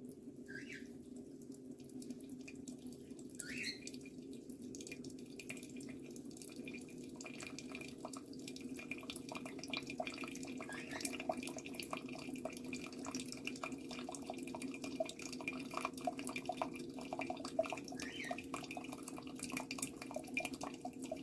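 Water running steadily, with dripping and crackling clicks that grow denser after about seven seconds and a few short, high rising chirps.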